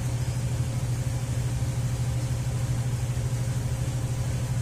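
A 2004 Ford Freestar's V6 engine idling steadily, a low even hum with no change in speed.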